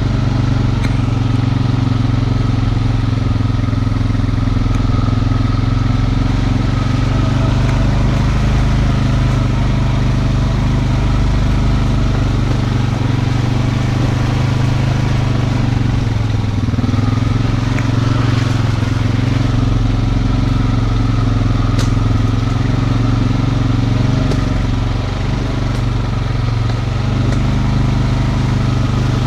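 Honda Rancher 420 ATV's single-cylinder four-stroke engine running steadily under way, its note holding nearly constant throughout.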